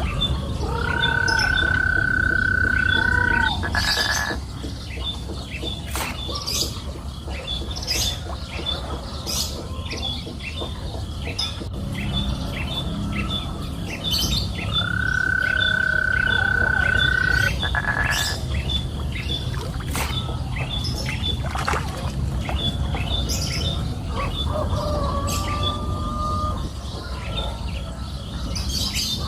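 Birds calling: a high chirp repeated two or three times a second, and two long steady whistles, each held for about two and a half seconds, near the start and about halfway through, over a steady low rumble.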